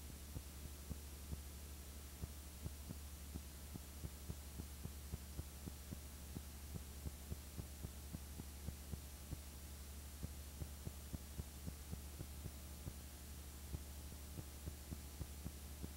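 A steady low hum with faint crackling clicks several times a second, irregularly spaced. This is the noise of an otherwise empty audio track on a transfer of a silent home movie.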